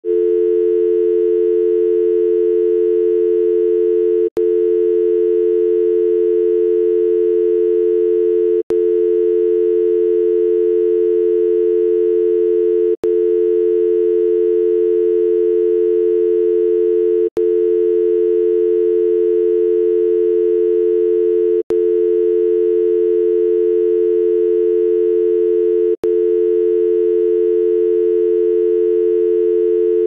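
Telephone dial tone: a steady, continuous hum of two close tones, broken by a very brief dropout about every four seconds.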